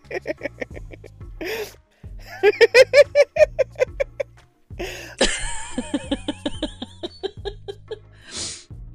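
Human laughter added as a laugh track, coming in three quick runs of rapid ha-ha-ha giggles and chuckles, over background music with a steady bass line.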